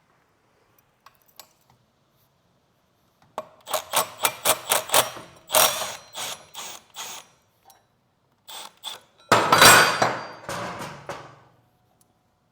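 Metal hand tools and parts clinking and clattering during motorcycle exhaust removal: a quick run of sharp clicks, about five a second, then a louder rattling clatter a couple of seconds later.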